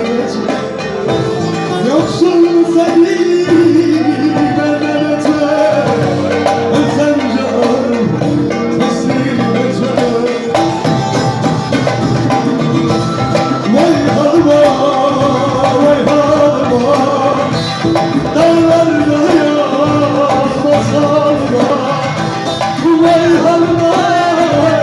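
Live Turkish folk music (türkü) played on bağlama, with a voice singing over the plucked strings.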